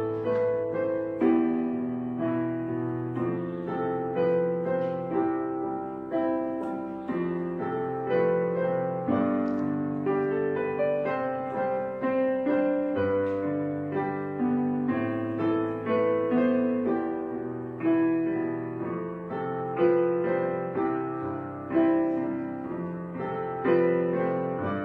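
Soft background piano music, a slow gentle melody of held notes.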